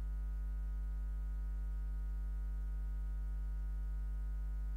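Steady electrical mains hum from the church sound system: a low hum with a ladder of buzzing overtones above it, unchanging and with nothing else over it.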